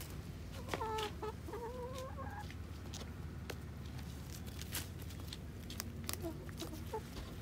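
Domestic hens clucking while feeding: short low calls about a second in and again near the end, with scattered sharp taps of beaks pecking at food on the ground.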